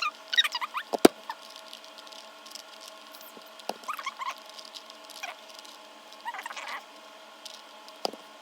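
A few sharp plastic clicks, with short bursts of high, wavering squeaks in between, fitting a Rubik's cube being twisted.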